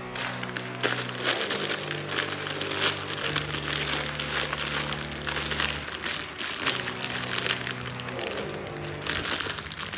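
Thin clear plastic packaging bag crinkling as it is handled and unwrapped, over background music with long held low notes.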